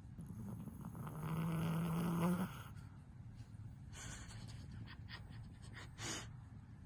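A sleeping one-year-old snoring: one long, loud snore with a steady buzzing pitch over the first two and a half seconds, then softer snuffling breaths and a short, sharp breath about six seconds in.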